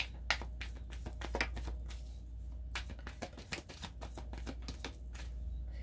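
Tarot cards being handled: a run of crisp clicks and slaps as cards are shuffled and laid down, over a low steady hum.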